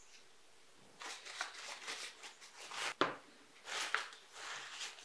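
Paper towel rubbing and crinkling against a small carved wooden lure body in quick, uneven scratchy strokes, working glue into the wood to seal and waterproof it, with a sharp click about three seconds in.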